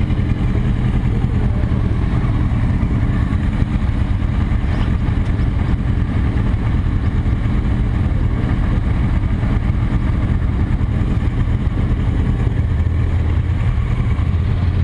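Motorcycle engines idling at a standstill, a steady low rumble led by the camera bike, a chrome cruiser. A deeper note swells in near the end.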